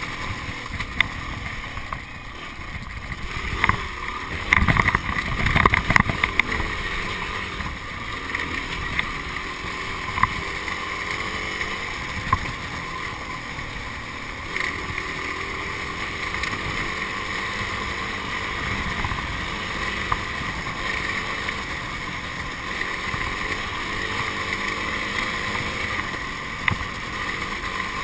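Yamaha trail motorcycle's engine running steadily as it rides a rough, muddy track. It is joined by a cluster of knocks and rattles about four to six seconds in, and a few single clicks later.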